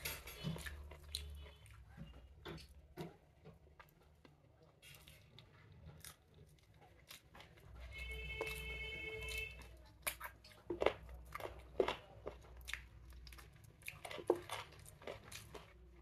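Eating sounds of chicken biryani eaten by hand: chewing and crunching, with fingers picking rice and chicken off a plate in irregular clicks and ticks. A short high steady tone sounds about halfway through.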